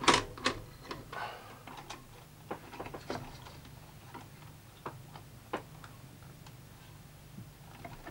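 Scattered light clicks and knocks of hands working at the circuit board and metal chassis of an opened top-loading VHS recorder, the sharpest knock right at the start, over a steady low hum.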